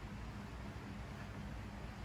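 1970s GEC ceiling fan motor running with a steady low hum under a hiss of moving air, the fan spinning in reverse because of a bad capacitor.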